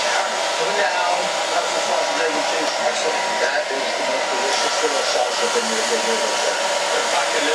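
Handheld hair dryer running steadily, blowing on freshly washed hair: a steady rush of air with a thin, even whine.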